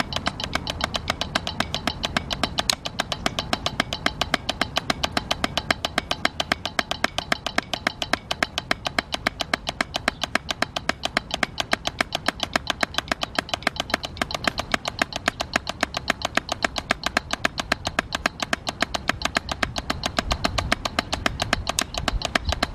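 Wooden drumsticks striking a drum practice pad in a fast, even stream of strokes, stroke-exercise practice at tempo 110. A low rumble of background noise sits underneath.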